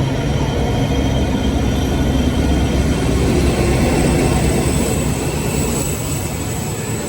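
Freight train passing close by, a loud steady rumble of rolling wagons and engine, easing slightly near the end, with a thin high whine coming in late.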